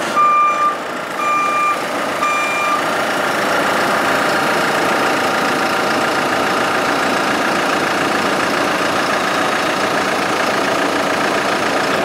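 JCB 3CX 14 Super backhoe: three short electronic warning beeps in the first three seconds, then its diesel engine running steadily while the loader arm is worked.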